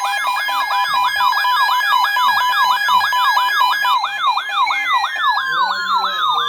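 Electronic siren in an emergency alert broadcast, sweeping up and down fast, about four to five times a second, over steady tones. It sounds as the attention signal between tornado warnings. Near the end a falling tone glides down as the siren winds down.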